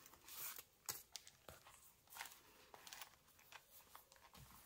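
Faint rustling and crinkling of a stack of banknotes being taken out of a leather ring-binder wallet, with scattered small clicks and taps from handling.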